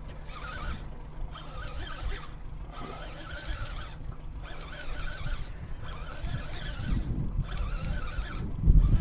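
Baitcasting reel being cranked in short runs of about a second with brief pauses, a lure worked back on a stop-start retrieve, over low wind and water rumble. A louder low thump comes near the end.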